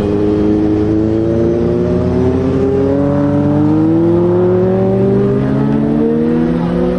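Volvo FH heavy recovery truck's diesel engine pulling away under load, its note rising steadily as it accelerates.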